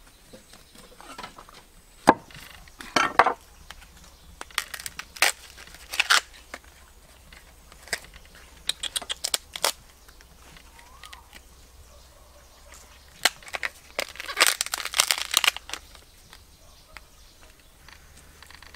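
Irregular crunching and cracking sounds in scattered clusters, with a single sharp snap about two seconds in, another about thirteen seconds in, and the densest run of crackling just after it.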